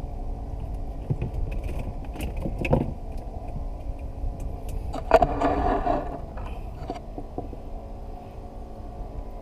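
Steady low motor hum on a small boat, under scattered clicks and knocks of fishing gear being handled, with a brief louder rasping sound about five seconds in.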